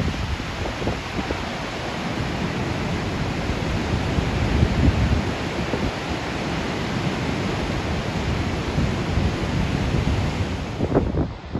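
Dettifoss waterfall's heavy, steady rushing water, heard close to the brink, with wind gusting against the microphone as low rumbles.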